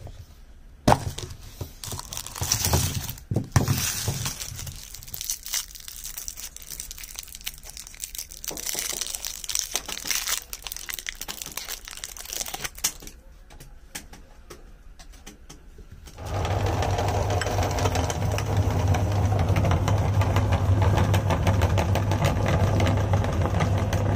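Foil candy wrappers crinkling and a plastic tub being handled as chocolates are unwrapped. About two-thirds of the way through, an electric meat grinder starts and runs steadily and much louder, grinding the chocolate candies.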